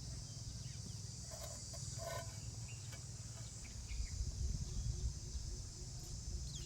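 A steady, high-pitched insect chorus over a low rumble, with a few brief faint sounds about a second and a half to two seconds in.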